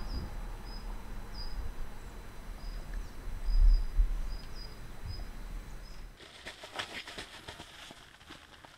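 Outdoor ambience of wind rumbling on the microphone, with short high chirps repeating irregularly about once a second. About six seconds in this cuts to the soft scratchy rustles and clicks of a small dog moving about on the tent's ground sheet.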